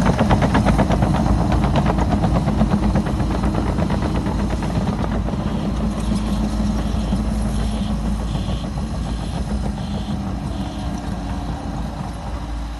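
Liebherr PR 736 crawler dozer's diesel engine running with a rapid, even pulsing, slowly fading over a dozen seconds. From about halfway a faint regular beeping sounds about seven times.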